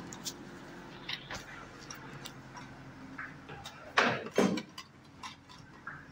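Footsteps on a concrete floor, heard as scattered light clicks, with two louder thumps close together about four seconds in.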